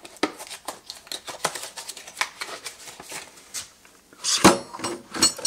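Light clicks and taps of a boxed set of plastic wrench organizers and their cardboard packaging being handled, with a louder rustle and scrape about four seconds in.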